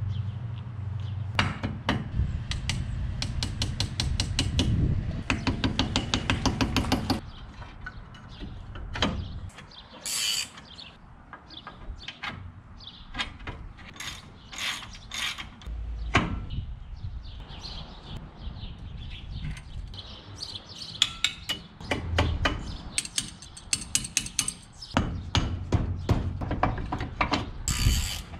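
Hand ratchet wrench clicking in long fast runs as bolts are turned at a truck's front wheel hub and brake, twice over, with scattered metal clinks and knocks of tools and parts in between.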